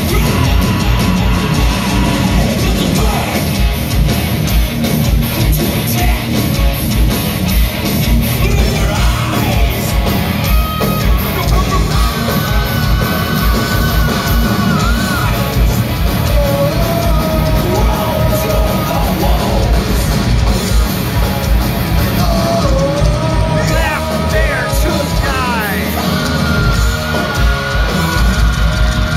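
Thrash metal band playing live and loud: fast pounding drums, distorted electric guitars and shouted vocals, with held, bending melody notes in the second half.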